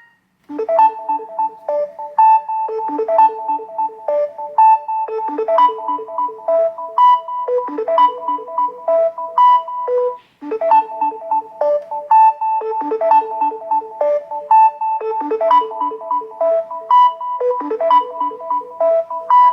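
Samsung Galaxy S24 Ultra stock ringtone: a melody of short, evenly struck notes and chords. It plays through one phrase, breaks off briefly about ten seconds in, then loops and plays the phrase again.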